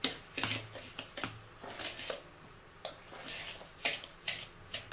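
Metal spoon scraping and stirring in a steel bowl, working semolina and curd together into a thick rava idli batter: a string of short, uneven scrapes, two or three a second.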